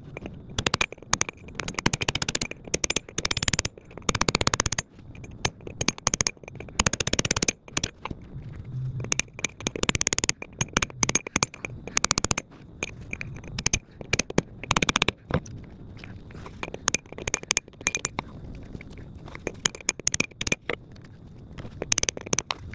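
Steel cold chisel scraping and clicking against a rusted nut as it is pried round, with loose rust grating. The roughly 100-year-old nut is spinning freely off its bolt.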